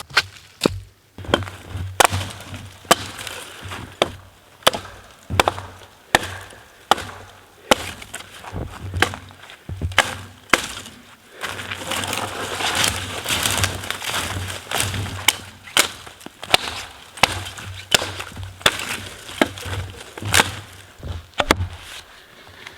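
Wood being chopped: sharp blows in a steady rhythm, a little more than one a second, with a denser, noisier stretch about halfway through.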